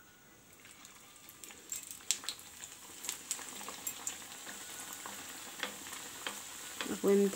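An aloo patty (potato-filled maida pastry) deep-frying in a small pan of hot oil: the oil sizzles, building over the first couple of seconds after the patty goes in, with scattered pops and crackles.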